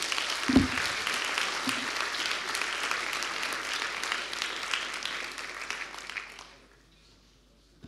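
Lecture-hall audience applauding, a dense clapping that fades away about six and a half seconds in. A single low thump sounds about half a second in.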